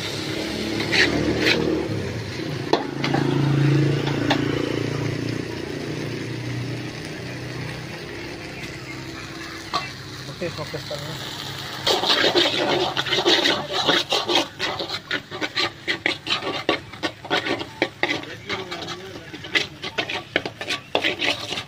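Stir-frying noodles in a large steel wok: a steady sizzle with a low hum at first. From about twelve seconds in, a metal spatula scrapes and taps rapidly and loudly against the wok.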